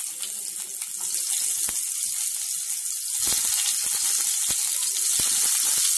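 Finely chopped garlic sizzling in hot oil in a kadai, with scattered sharp pops and spits. The sizzle grows louder about three seconds in.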